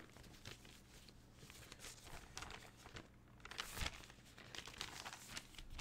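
Faint rustling and crinkling of a sheet of drawing paper being handled and moved about, with scattered light ticks and a louder rustle about four seconds in.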